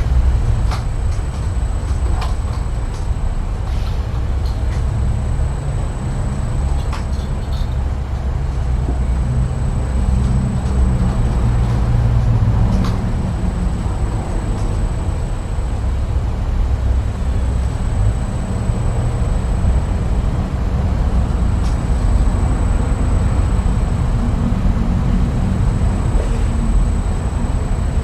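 Steady low rumble with a few faint clicks scattered through it and a thin, high, steady tone above it.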